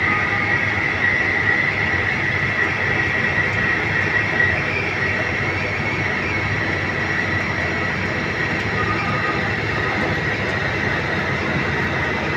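CNC lathe turning a metal bar with a TNMG carbide insert, cutting dry without coolant: steady spindle and cutting noise with a constant high whine.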